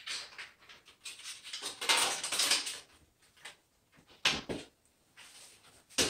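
Plastic remote-control wall bracket and its card placard being handled and fitted against a wall: about two seconds of rustling and scraping, then a couple of sharp plastic clicks.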